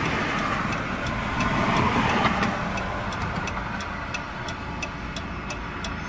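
Hazard-light flasher ticking at an even pace, over a broad vehicle noise that swells about two seconds in and then fades.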